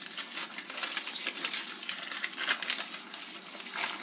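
Butter wrapper paper rubbed briskly around the inside of a glass baking dish to grease it: quick, irregular papery rustling and crinkling strokes against the glass.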